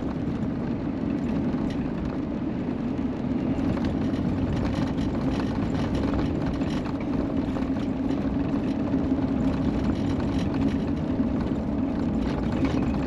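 Steady engine and road noise from a Chevrolet driving on a snowy highway, heard from inside the vehicle.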